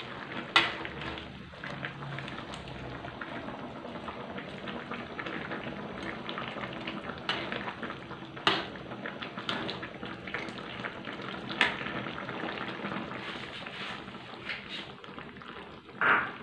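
Coconut-milk curry bubbling at a simmer in a wok, stirred with a metal ladle that now and then knocks and scrapes against the pan, with a louder knock near the end.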